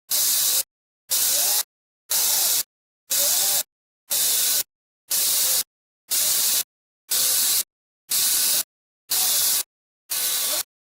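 Regular bursts of static-like hiss, about one a second, each starting and stopping abruptly with dead silence between.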